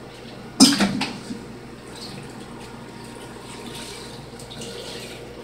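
A single sharp knock about half a second in, then a faint, steady hiss.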